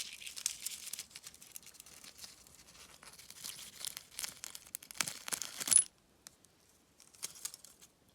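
Crinkling, scratching rustle with many small clicks as a soldering iron's mica-wrapped heating element is handled and picked apart by hand. It cuts off suddenly about six seconds in, followed by a few faint clicks.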